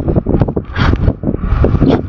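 White storks clattering their bills, a rapid run of hollow knocks, with wind buffeting the microphone.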